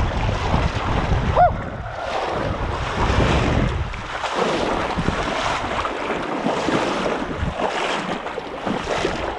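Wind buffeting the microphone over rushing river water, with a short whistle that rises and falls about a second and a half in.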